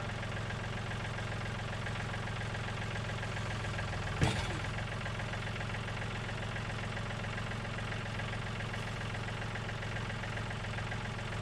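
John Deere tractor engine idling steadily, with a single sharp knock about four seconds in.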